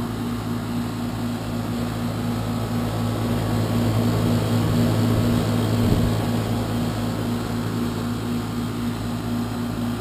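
A 12-year-old heat pump's outdoor unit running loudly: a steady low hum under the even rush of its fan. It is an aging unit noisy enough that the homeowners want it replaced.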